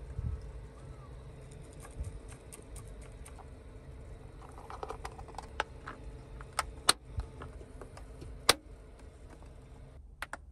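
A series of small clicks and taps, the loudest two sharp clicks about seven and eight and a half seconds in, over a steady low rumble.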